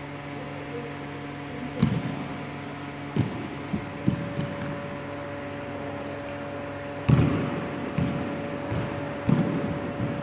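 A series of dull thuds, about eight in ten seconds and the loudest about seven seconds in, echoing around a large sports hall: a candidate landing from jumps, then thrown balls (basketball and medicine balls) striking. A steady hum runs underneath.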